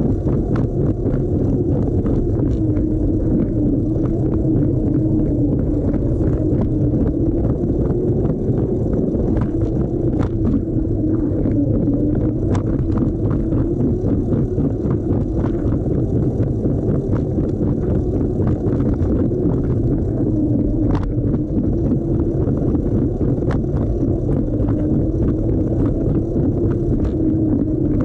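A Lego train locomotive's electric motor and gearing drone steadily, heard close up from a camera riding on the loco, with the pitch wavering slightly. Irregular clicks and rattles come from the wheels running over the plastic track joints.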